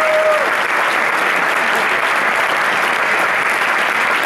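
Audience applauding steadily, with a single held whistle from the crowd that drops away about half a second in.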